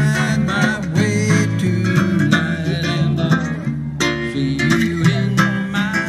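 Acoustic music: strummed guitar and other plucked strings over a moving bass line.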